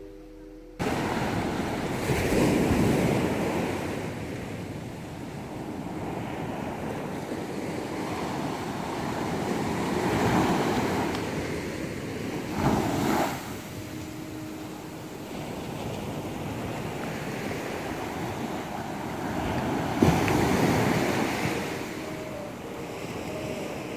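Small waves breaking and washing up a sandy beach, the surf swelling louder every several seconds as each wave comes in.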